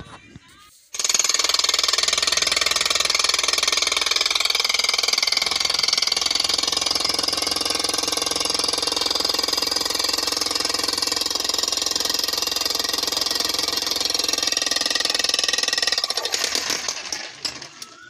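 Handheld demolition hammer (jackhammer) with a chisel bit breaking up hard red earth and stones: it starts about a second in, runs steadily with very fast hammer blows, and winds down near the end.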